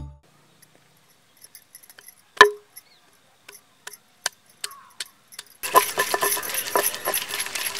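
Wooden pestle pounding garlic cloves in a stone mortar: irregular sharp knocks. A dense hiss of background noise comes in just past halfway, with the knocks continuing through it.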